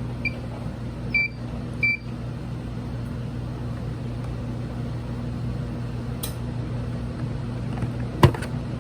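Steady low electrical hum with three short, high electronic beeps in the first two seconds, then a sharp click near the end.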